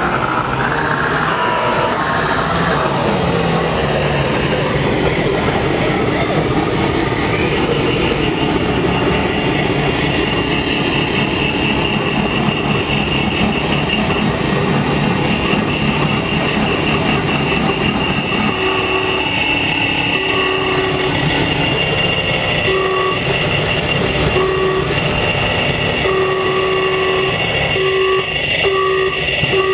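Live electronic noise music from modular synthesizers and effects pedals: a loud drone of layered sustained tones over noise, with pitch glides in the first few seconds. A little past halfway, a repeating tone starts switching on and off about once a second over the drone.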